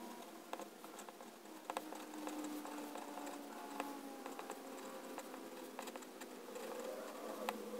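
Pilot Penmanship extra-fine fountain pen nib writing cursive on Rhodia dot-pad paper: a faint, continuous scratching with frequent small ticks as strokes begin and the nib lifts between letters.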